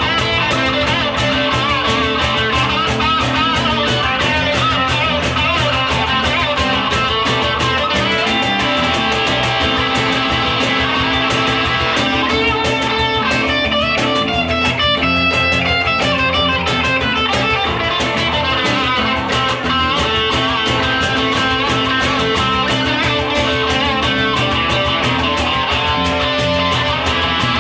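A live band plays an instrumental stretch of the song, with guitars over bass and drums keeping a steady beat.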